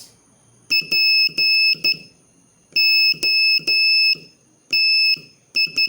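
Morse code practice tone, one steady high beep keyed in short dots and longer dashes, spelling the word POTS: dot dash dash dot, dash dash dash, dash, dot dot dot.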